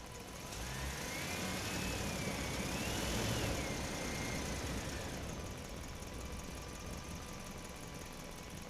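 A vehicle engine sound effect, running with a low rumble that swells up about half a second in, with a whine that rises and falls in pitch, then eases back to a steady lower level after about five seconds.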